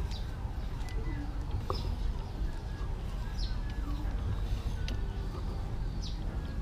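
Ratchet and socket turning the centre bolt of a timing gear puller, drawing the timing gear off a Honda TMX 155 crankshaft: a few sharp metal clicks at irregular intervals over a steady low rumble.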